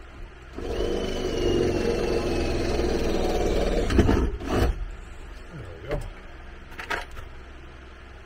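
A power drill runs for about three and a half seconds with a thin whine that slowly falls in pitch, as the couch is fastened in place. A few knocks and short creaks from the couch frame follow.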